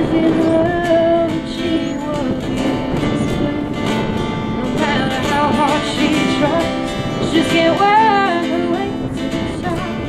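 Acoustic guitar strumming under a melody line that bends and glides in pitch.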